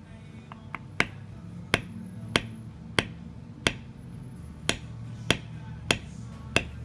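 Mallet tapping a metal leather-stamping tool into tooling leather: nine sharp, crisp taps about every two-thirds of a second, with one slightly longer pause midway.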